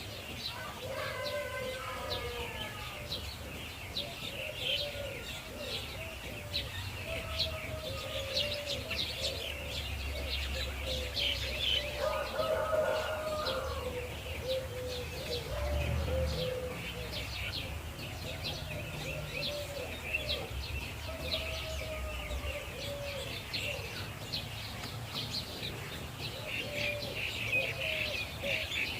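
Outdoor bird chorus: many small birds chirping continuously, with a lower bird call repeating short curved notes every second or so.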